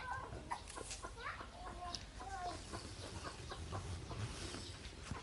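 A run of short chirping, clucking animal calls, some gliding up or down in pitch, with small clicks in between.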